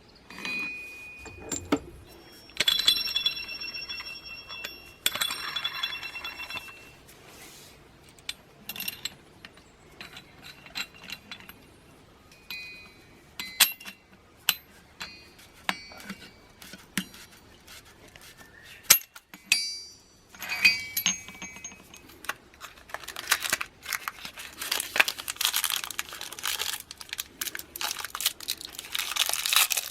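Metal transmission parts clinking and ringing as they are handled and set down, a string of separate clinks. Near the end comes a denser stretch of scraping and rattling.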